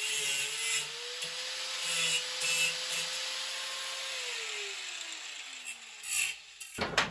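Angle grinder with a cut-off disc cutting through a steel pipe: a steady motor whine under a hissing grind. About four seconds in it is switched off and the whine falls in pitch as the disc spins down, followed by a few knocks near the end.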